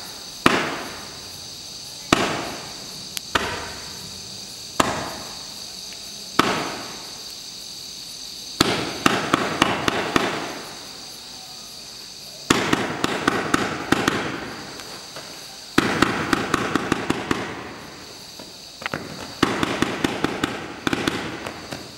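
Bright Star Battleship 145-shot fireworks barrage cake firing. Five single shots go off about a second and a half apart, then, from about eight seconds in, rapid volleys of shots come in four runs of a couple of seconds each.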